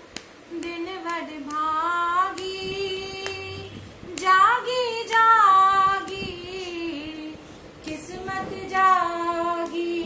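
Woman singing a Punjabi devotional song unaccompanied, drawing out long held notes that bend and glide in pitch.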